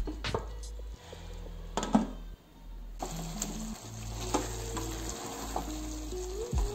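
Metal spoon stirring brinjal curry in an aluminium pressure-cooker pot, clinking against the pot a few times, with a soft sizzle from the cooking masala.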